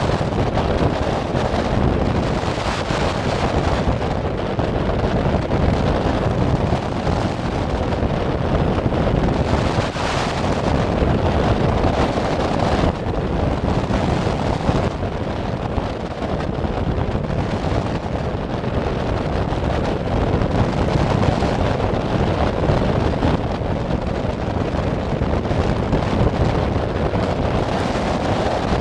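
Steady wind noise buffeting the microphone of a camcorder mounted on a hang glider's keel while the glider flies.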